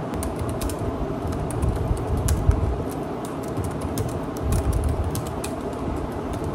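Typing on a computer keyboard: quick, irregular keystrokes over a steady low background noise.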